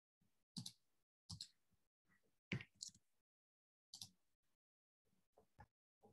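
Faint clicking as someone works a computer at a desk: about eight short, separate clicks, irregularly spaced, with silence between.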